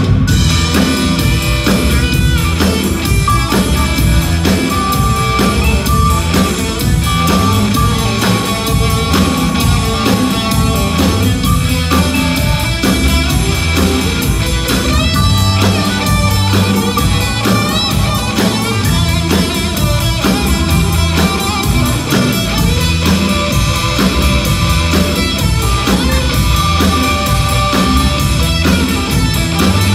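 Live band playing blues, led by electric guitar over electric bass, drum kit and keyboard, at a steady beat.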